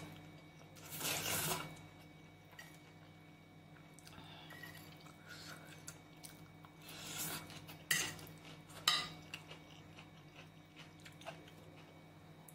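Close-up eating of noodle curry: noodles slurped off a fork about a second in and again around seven seconds, with soft chewing between. A metal fork clinks sharply against a white ceramic plate twice, near eight and nine seconds.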